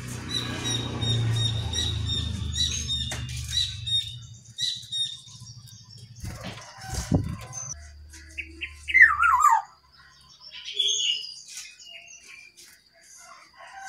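Brown-chested jungle flycatcher calling: a rapid, noisy chatter of short high notes for about the first four seconds, then scattered calls and a loud call falling in pitch about nine seconds in.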